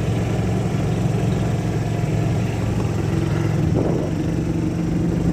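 Golf cart engine running steadily while the cart drives along.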